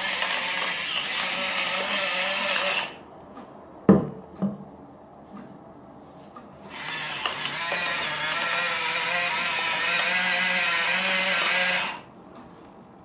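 Electric battery-powered salt and pepper grinders running, grinding salt and pepper: a steady whirring motor in two runs of several seconds each, the first stopping about 3 s in and the second starting about 7 s in and stopping near 12 s. A single knock sounds in the pause between them.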